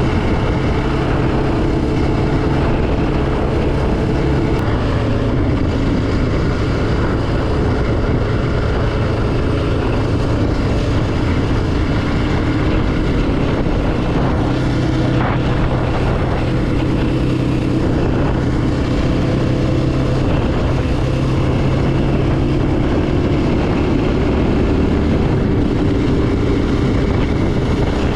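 Yamaha Raptor 700R ATV's single-cylinder engine running steadily, its pitch rising slightly near the end.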